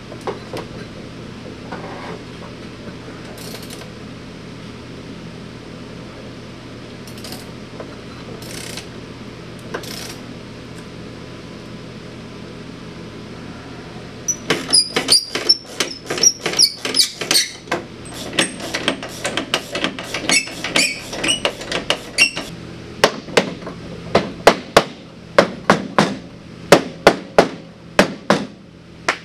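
A hammer striking the metal rear suspension of a snowmobile, in a rapid series of sharp blows at about three a second, starting about halfway through. The first blows ring high and metallic. Before them there is only a steady low hum and a few faint clicks.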